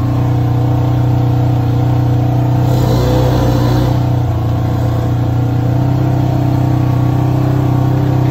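Polaris RZR side-by-side's engine running steadily under way, a constant low drone heard from inside the open cab.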